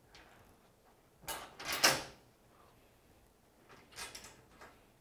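Metal parts of an aluminum roof rack being handled on an aluminum roof: a scraping clatter about a second and a half in, then a shorter, fainter bout of knocking near four seconds.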